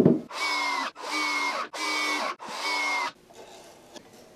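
A knock, then a power drill-driver running in four short bursts of about half a second each, driving 2.5-inch screws into the corners of a glued-up wooden picture frame to reinforce the joints.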